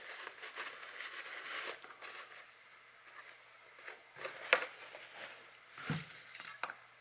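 Handling noise of small air-rifle parts, the removed hammer spring and back plug: rustling for the first couple of seconds, then quieter with a few sharp clicks and taps.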